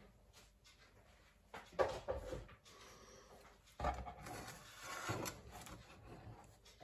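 Faint kitchen handling sounds as food is served up: a sharp knock about two seconds in, then softer clattering and shuffling of utensils and plate.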